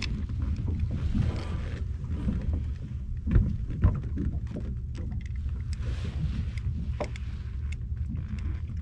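A steady low rumble of wind and water around a small boat, with a few sharp knocks and clicks from a plastic fish grip and a caught horse mackerel being handled on the deck. The two loudest knocks come about three and a half and four seconds in.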